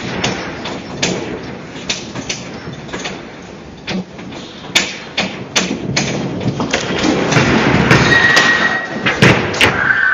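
An apartment building shaking in a strong earthquake: a continuous rumble with the front door and fittings rattling and knocking over and over. The shaking grows louder in the second half, with a brief high squeal about eight seconds in.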